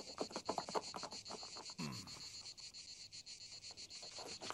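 Cartoon sound effects: quick hoofbeats of a galloping horse over a steady high cricket-like chirring. A short falling tone comes at about two seconds in, and hoofbeats start again near the end as a horse-drawn carriage approaches.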